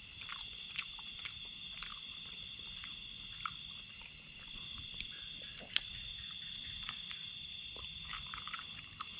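A steady, high-pitched chorus of night insects, with scattered sharp clicks and crunches as a grilled crayfish's shell is bitten and chewed.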